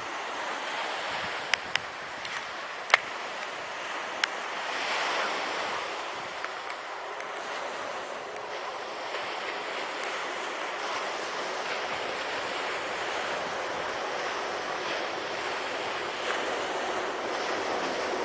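Sea surf washing steadily against the beach and sea wall, with a few sharp clicks in the first few seconds from a wheelchair-mounted camera mount. Near the end the rumble of the approaching New Measurement Train, led by its HST power car, grows louder.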